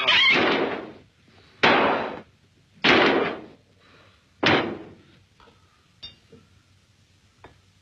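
Four loud crashes, each fading over about half a second, then a few faint clicks near the end.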